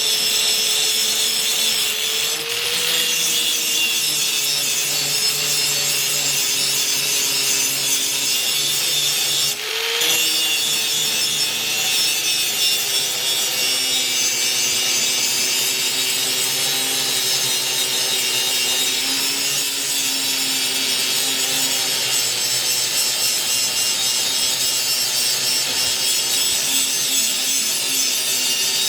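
Power grinder grinding the edge of an axe head: a steady hiss of steel on the abrasive over a held motor whine, with a brief break a little under ten seconds in.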